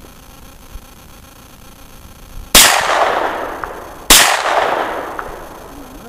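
Two shots from a Kel-Tec SUB-2000 9mm blowback carbine, about a second and a half apart, each a sharp crack followed by a long fading echo.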